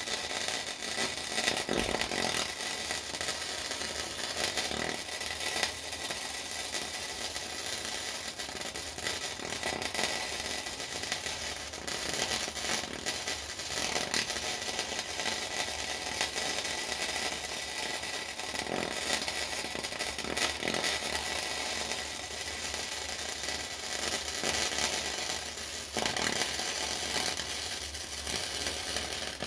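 Flux-core wire-feed welding arc crackling steadily, cutting off suddenly at the end as the arc stops.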